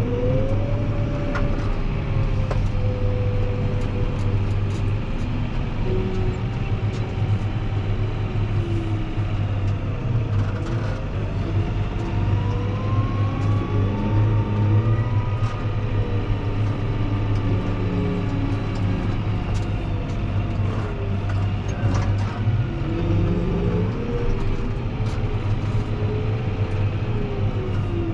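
Fendt 724 Vario tractor's six-cylinder diesel engine running steadily under way, with a whine that rises and falls slowly in pitch as the tractor speeds up and slows.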